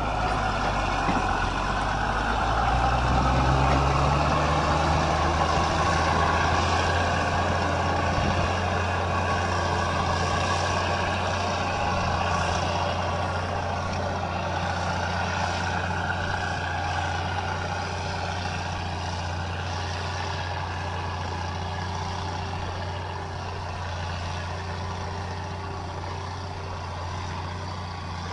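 Heavy engine running under load, its low hum climbing in pitch a few seconds in and then holding steady over a broad mechanical clatter.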